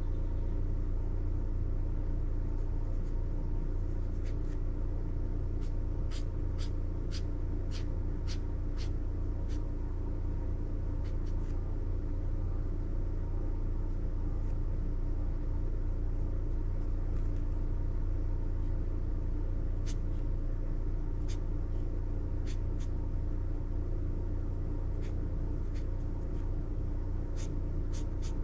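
Steady low rumble under the strokes of a fine-tip ink pen on sketchbook paper: a quick run of short strokes about six to nine seconds in, then scattered single strokes.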